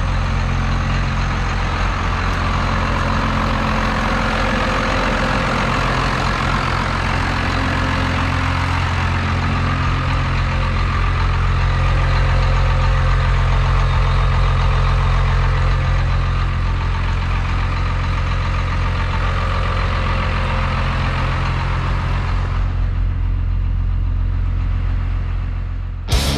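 First-gen Cummins 5.9-litre inline-six diesel in a 1991 Dodge Ram 350 idling steadily, now fuelled by a 12 mm VE injection pump. Its sound turns duller about three seconds before the end.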